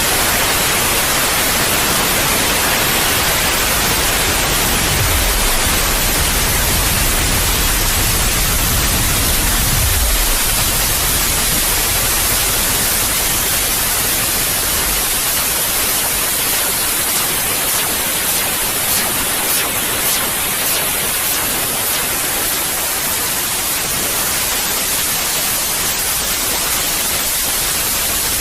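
Steady white noise hiss, played as a sleep aid for a colicky baby, with a low rumble underneath that dies away about halfway through.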